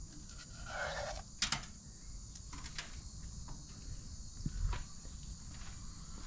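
Steady high-pitched insect chirring in the background, with a few light clicks and taps scattered through.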